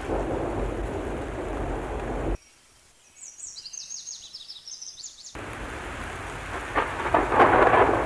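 Thunderstorm sound effects: steady heavy rain with rumbling thunder that cuts off abruptly about two seconds in. A few seconds of high birds chirping follow, then the rain comes back and builds to a loud, crackling thunderclap near the end.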